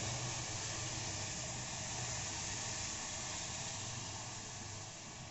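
Milk poured in a steady stream from a steel jug into a hot kadhai of butter-and-flour roux for white sauce, giving a steady rushing noise that eases off toward the end.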